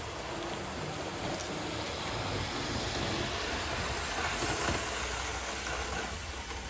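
A 00 gauge model HST running along the track: a steady rumble of wheels and motor that grows louder as the train passes close, about four to five seconds in, then eases off near the end.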